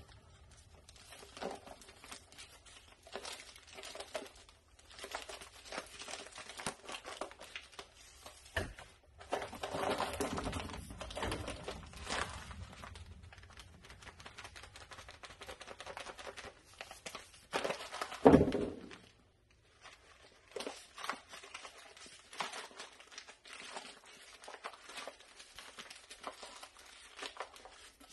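Bag of Feather Finish cement skim-coat crinkling and rustling as the dry powder is shaken out into a steel mud pan, with a denser stretch of rustling about ten seconds in and one loud thump about eighteen seconds in.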